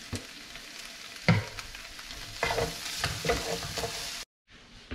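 Calamari stir-fry sizzling in a skillet, with a sharp knock a little over a second in. From about two seconds in, a wooden spatula scrapes and clatters against the pan as the food is stirred. The sound cuts off abruptly near the end.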